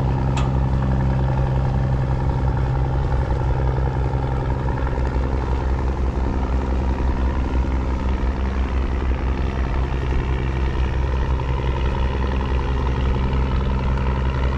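A steady engine drone that holds one pitch throughout, with no change in speed.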